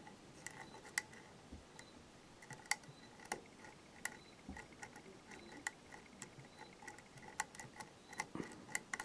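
Faint, irregular clicks and light ticks of a lock pick working the pins of a pin tumbler lock fitted with spool security pins, about one or two clicks a second.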